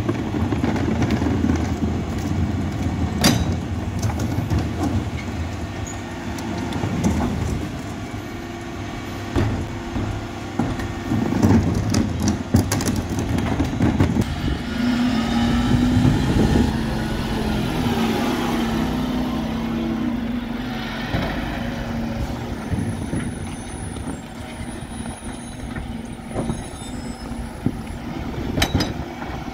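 Dennis Elite refuse truck running at the kerb while its electric bin lifts tip and lower wheelie bins. There is a steady engine rumble, a whining tone from the lift about halfway through, and sharp knocks of bins against the lift, one about three seconds in and one near the end.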